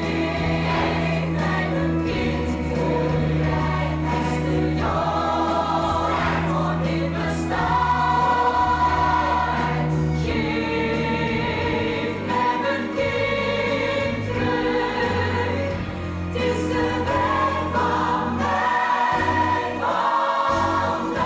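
A choir of musical-theatre singers singing a song in full voice with a live orchestra, held low notes underneath that change about halfway through.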